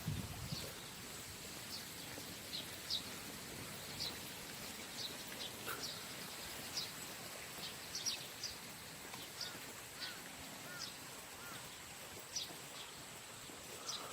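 Wild birds chirping: scattered short high chirps at irregular intervals, with a few lower arched calls around the middle, over a faint steady hiss and a thin high whine.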